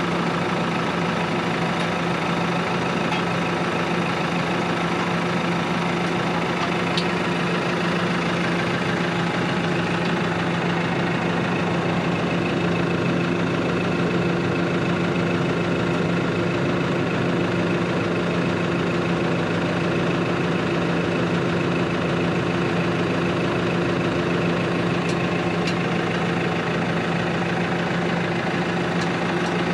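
New Holland Workmaster 105 tractor's diesel engine running steadily at a constant speed.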